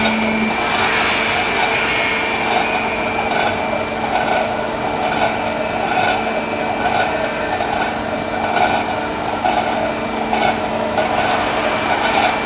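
Steel pipe induction quenching and straightening line running: steady machine noise with a high steady tone, and a rhythmic pulse a little faster than once a second that becomes clear about four seconds in.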